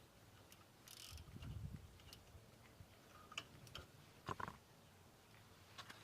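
Faint, irregular metallic clicks and knocks of a 10mm spanner working the small disc retaining screws out of a front brake disc. A duller knock comes about a second in and a sharper click about four seconds in.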